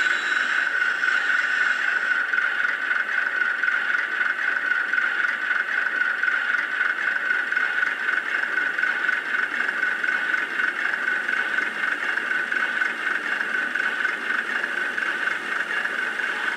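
Sound decoder in a Bachmann OO Class 105 DMU model playing a Class 108 diesel railcar engine sound, running steadily through the model's small speaker. The sound is thin, with little deep bass.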